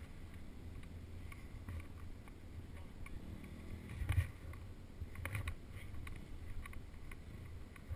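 Motocross bike's engine running at low revs with a low rumble as the bike rolls slowly over rough dirt, with a few sharp clatters about four and five seconds in.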